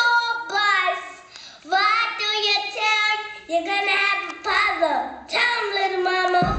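A high-pitched voice singing in short phrases with brief breaks between them. A deep low sound comes in right at the end.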